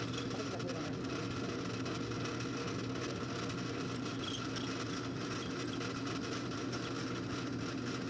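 Drill press running with a steady hum while a drill bit is fed down through a small metal block, drilling a through hole.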